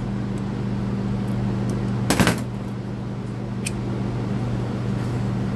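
Steady hum of electric shop fans, with a short burst of sharp clicks about two seconds in from hand tools worked on a trimmer's recoil starter rope.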